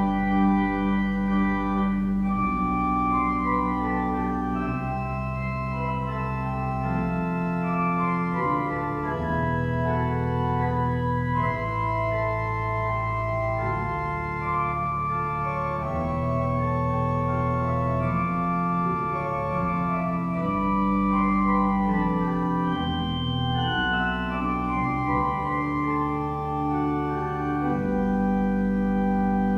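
Church organ playing a slow postlude of sustained chords, with deep bass notes, the chords changing every second or two.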